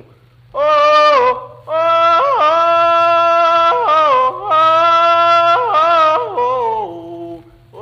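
A man's unaccompanied field holler (cornfield holler): one voice in long, loud cries that leap up and slide down between held notes, dropping lower near the end. A steady low hum of an old recording sits underneath.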